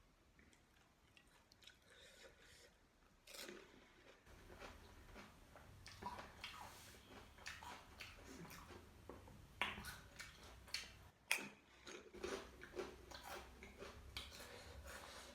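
A person chewing and biting crunchy food close to the microphone, with irregular crisp crackles and wet mouth sounds, busier from about three seconds in.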